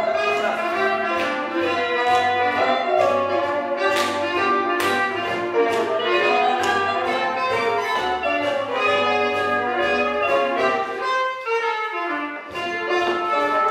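Swing jazz recording with a brass section and trumpet over a steady bass line and drums. The bass drops out briefly about eleven seconds in.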